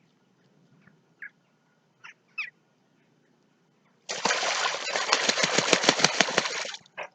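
A few short, faint bird calls, then about four seconds in a loud rush of beating wings lasting some two and a half seconds, as a waterbird flaps its wings, ending abruptly.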